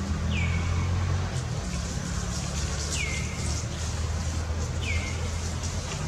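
A bird calling three times, each call a short whistle that slides down in pitch and then holds briefly, over a steady low rumble.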